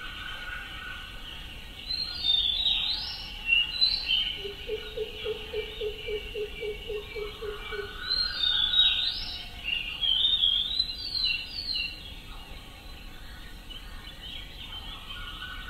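Wild birds chirping and calling over a steady high background chorus. A run of about a dozen low, evenly spaced notes, three or four a second, starts about four seconds in and stops near eight seconds.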